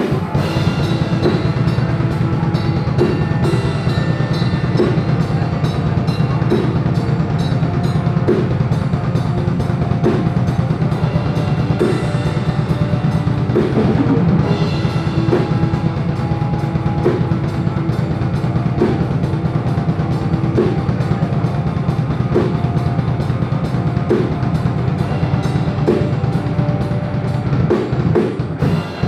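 Metalcore band playing live in rehearsal: distorted electric guitars and bass over fast, driving drum-kit playing.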